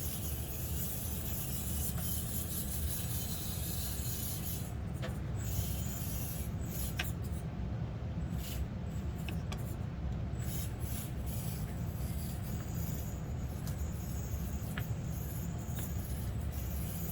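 1/24-scale Axial SCX24 Deadbolt RC crawler's small electric motor and gears whirring as it crawls over the course, the high whir cutting in and out with the throttle, with a few sharp clicks and scrapes from the tyres and chassis on the obstacles.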